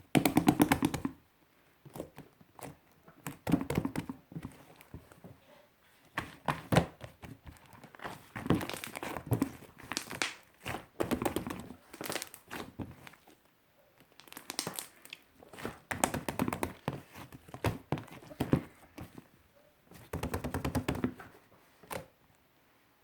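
Hands squishing, pressing and stretching a fluffy shaving-foam slime, giving bursts of crackling, popping clicks with short pauses between them.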